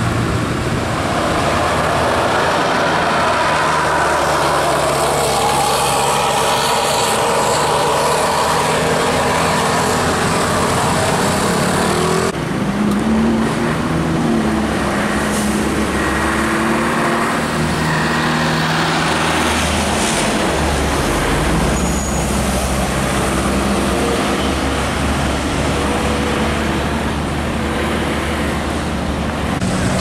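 Road traffic: buses, cars and a truck passing with their engines running. The sound changes abruptly about twelve seconds in, and steady low engine tones follow.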